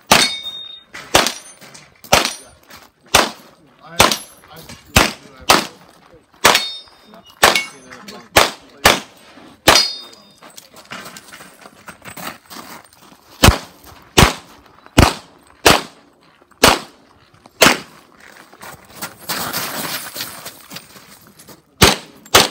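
Competition handgun fired in a course of fire: about twenty sharp shots in pairs and singles, with pauses between groups as the shooter moves. Several shots are followed by the brief ring of hit steel targets. A short stretch of noise with no shots comes about three-quarters of the way in.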